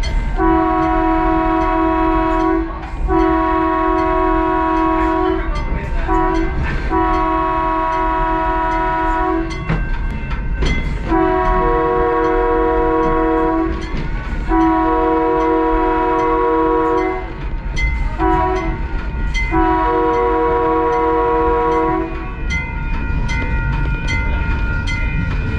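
Skunk Train's multi-note horn sounding the road-crossing signal twice over: long, long, short, long, then the same again. The pattern warns traffic at grade crossings. Under it is the steady rumble and clatter of the train rolling along the track.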